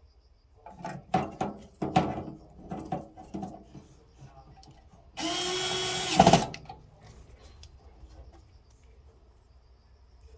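Clattering and knocking of parts being handled, then a small handheld power tool spins for about a second and stops with a knock.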